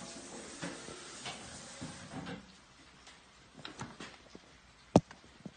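Handling noise: rustling for the first two seconds or so, then a few small clicks and knocks, with one sharp knock about five seconds in that is the loudest sound.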